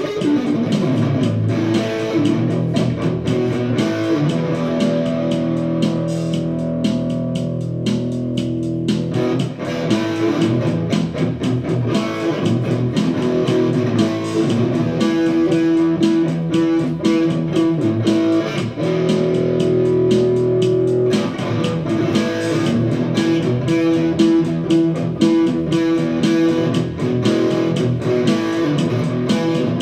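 Electric guitar jamming through an amplifier: sustained melodic lines and chords over a steady beat.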